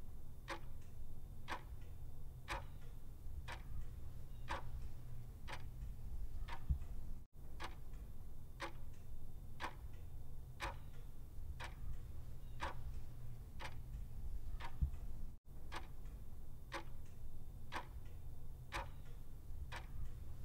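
Clock ticking steadily at about two ticks a second over a low steady hum. The sound cuts out for an instant twice.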